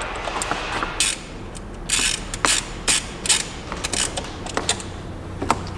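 Irregular sharp clicks and knocks, two or three a second, from hands working plastic and metal parts in a car's engine bay.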